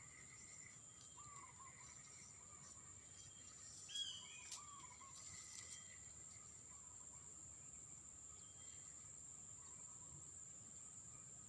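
Faint outdoor ambience: a steady high-pitched insect drone with scattered short bird chirps. A couple of sharp clicks about four seconds in.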